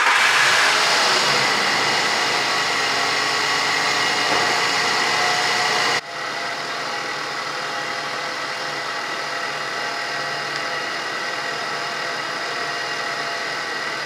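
A 2001 Ford F-150's 4.2-litre V6 idling just after a cold start, at a raised cold-start idle that eases slightly. About six seconds in, the sound cuts abruptly to a quieter, steady idle as the warmed engine settles.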